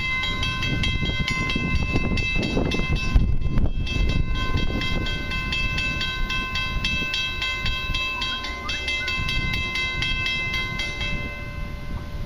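Railway level-crossing bell ringing steadily at about two strikes a second, warning of an approaching train, then falling silent near the end. Wind rumbles on the microphone underneath.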